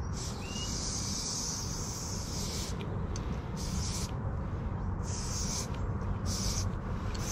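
Aerosol spray-paint can spraying black fill paint onto rock in a series of hisses: one long spray of about two and a half seconds, then four short sprays. A steady low rumble runs underneath.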